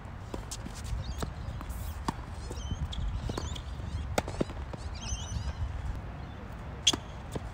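Tennis balls struck by racket strings and bouncing on a hard court: a string of sharp pops during a rally, with the loudest a single serve strike near the end.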